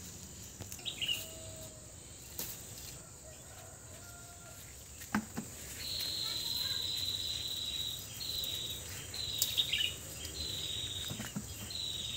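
Insects calling: from about halfway through, a high-pitched call repeated in held notes about a second long, over a steady high hiss. A few light snaps and rustles of cucumber vines being handled.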